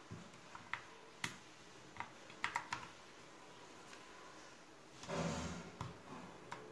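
Wooden keycaps being pressed onto a mechanical keyboard's switch stems: scattered sharp clicks, with a quick run of three about two and a half seconds in. A louder scraping rustle lasts about half a second, some five seconds in.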